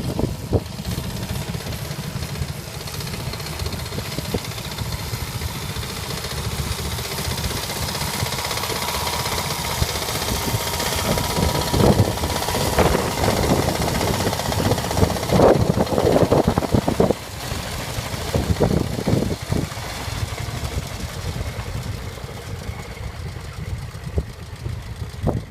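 Tractor engine running steadily, with a run of loud sharp knocks about halfway through.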